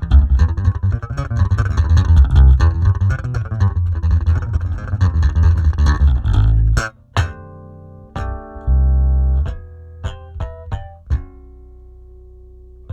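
Electric bass guitar played through a preamp and an Aguilar 4x10 cabinet impulse response. For about the first seven seconds it plays a busy, fast run of low notes. After a brief gap come sparser, higher ringing notes and a held low note.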